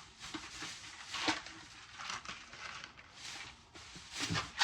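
Grocery boxes and packaging being handled and set down: scattered rustles and light knocks, with a louder knock near the end.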